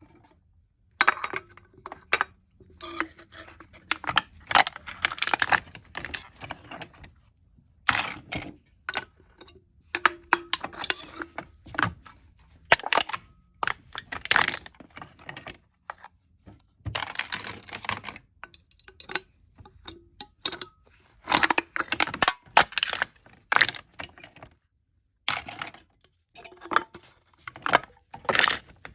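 Aluminium drink cans being crushed: crisp crackling and crinkling of the thin metal, in bursts of a second or several, with short pauses between.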